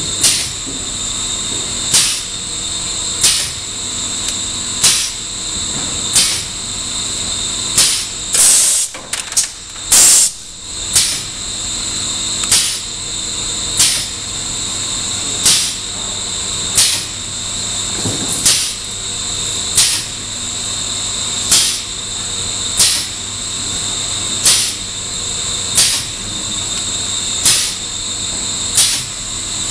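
Errepi Vittoria 1600 automatic roll machine running: a steady high whine over a low hum, with a short hissing burst repeating about every 1.3 seconds as it cycles. There is a cluster of louder bursts about nine to ten seconds in.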